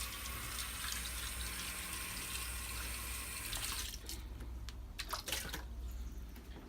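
Kitchen tap running into a sink as a plastic ice tray is rinsed out; the water cuts off about four seconds in, followed by a few light knocks.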